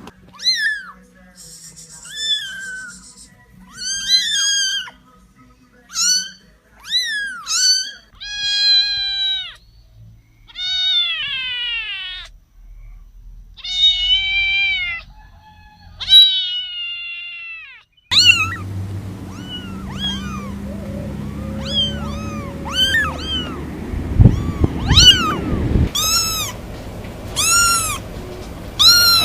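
Kittens meowing over and over in short, high-pitched calls, some drawn out for about a second. After a cut about 18 seconds in, quicker meows follow over background noise, with a low rumble a little after the middle of that stretch.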